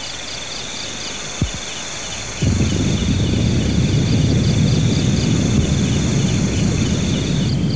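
Crickets chirping steadily in a high, pulsing chorus. A single sharp knock about a second and a half in, then from about two and a half seconds a loud, low rumbling noise joins and runs on under the crickets.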